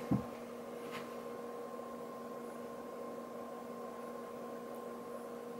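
Steady electrical hum over quiet room noise, with a soft low thump just at the start and a faint click about a second in.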